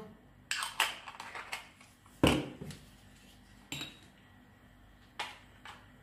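A series of short, sharp metal clinks and knocks, the loudest just after two seconds in, as a stainless steel filter basket is fitted into an espresso machine's portafilter and handled.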